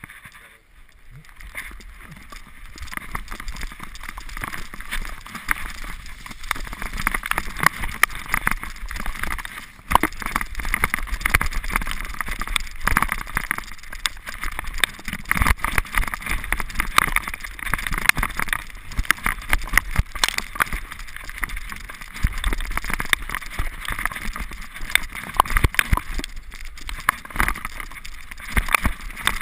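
Mountain bike descending a rough downhill trail, heard from a camera mounted on the rider or bike: a continuous clatter of rattles and knocks from the bike over roots and dirt, with tyre noise, building up over the first couple of seconds as speed rises.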